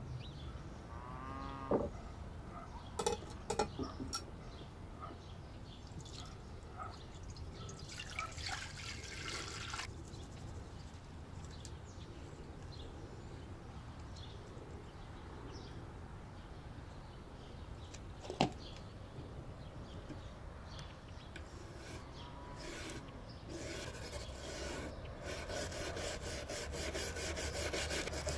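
Scattered handling taps and clicks, then, over the last few seconds, a stiff brush scrubbing a rusty steel knife blade in liquid in a glass dish with quick, even strokes.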